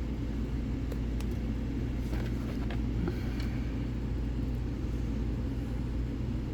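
A steady low rumble, with a few faint light clicks as a lock pick works the pins of a pin-tumbler lock.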